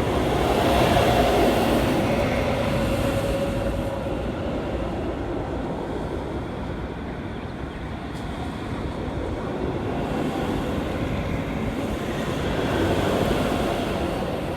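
Steel roller coaster train on a test run, a steady rumble of wheels on track with a faint hum, swelling about a second in and again near the end as the train passes.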